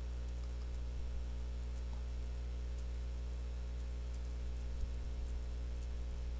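Steady low electrical hum with hiss from the recording setup, with a few faint clicks about a second in and near five seconds.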